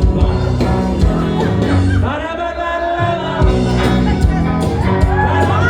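Live rock band playing, with a singing voice carrying the melody over bass, guitar and drums.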